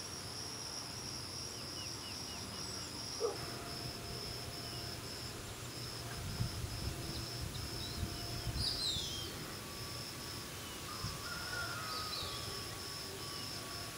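Outdoor ambience of insects trilling in a steady, fast pulsing high buzz, with a few short bird chirps and quick falling calls about halfway through and again near the end.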